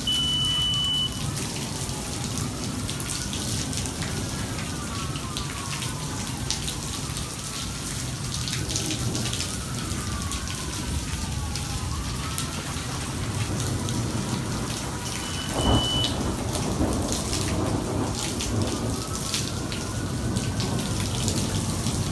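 Heavy rain pouring during a thunderstorm, with a rumble of thunder about two-thirds of the way through. Sirens wail underneath, several at once, rising and falling every couple of seconds. A short high electronic beep sounds twice, at the start and again near the thunder.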